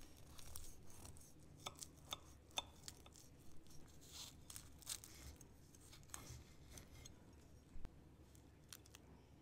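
A small utility knife sawing through a crisp baked puff pastry roll: the flaky layers crackle and crunch in many short, faint bursts.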